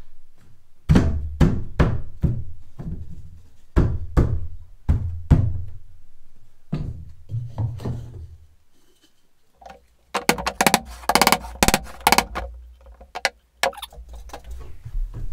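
A wooden block knocked against a pine car-siding floorboard to tap it into place: a series of separate wooden thunks, then a quick flurry of rapid knocks about ten seconds in.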